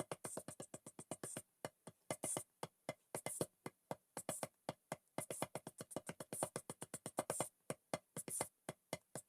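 Quiet electronic background music of fast, clicky drum-machine beats in short runs, with brief gaps about once a second.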